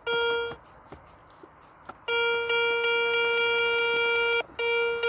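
Garrett ACE 150 metal detector sounding a steady mid-pitched target tone. It gives a short beep, then about a second and a half of quiet, then a long unbroken tone for about two seconds, a brief break, and the tone again near the end. The signal is firm and does not change as the coil passes over a shallow coin.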